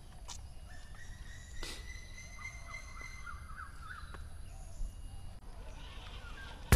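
Outdoor garden ambience: a steady low background rumble with birds calling, including a short warbling trill a few seconds in.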